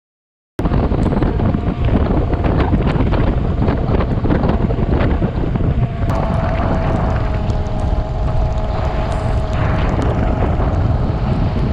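Wind buffeting the microphone of a moving Royal Enfield Himalayan motorcycle, cutting in abruptly just after the start, with the engine running underneath and many short sharp ticks and knocks. From about six seconds in a steady engine note comes through the noise.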